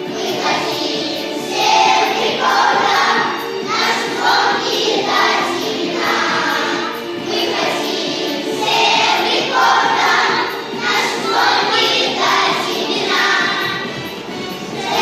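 A children's choir singing a song together over an instrumental backing.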